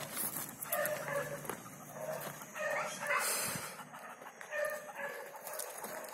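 A dog barking repeatedly, short barks roughly once a second, with a brief scuffing noise about three seconds in.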